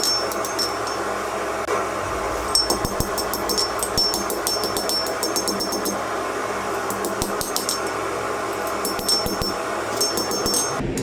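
Blacksmith's hammer striking steel on an anvil in runs of quick blows, each with a bright metallic ring, over the steady rush of a running forge.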